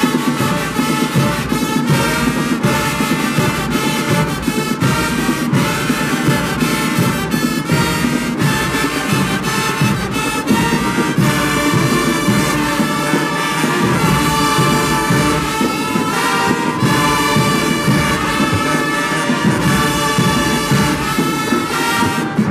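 Marching band playing loud brass music, with sousaphones, trumpets, trombones and saxophones sounding held chords over a steady beat.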